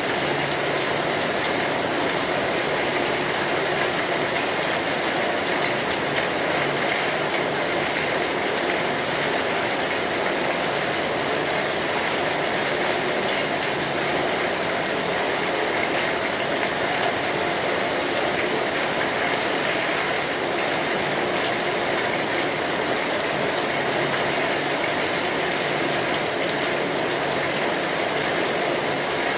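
Steady rain falling, a constant even hiss. A faint low tone from a distant fog horn sounds twice, a couple of seconds in and again near the end.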